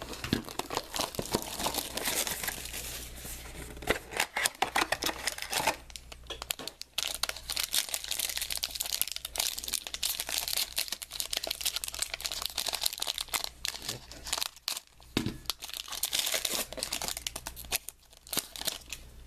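Clear plastic wrapping being torn and crumpled by hand, then a foil trading card pack handled, giving dense crinkling and crackling with a few short pauses.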